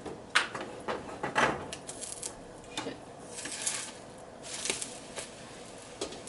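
A spatula tapping and scraping against a nonstick frying pan as an egg white is loosened and flipped: a run of sharp taps and knocks, then two longer scrapes about three and a half and five seconds in.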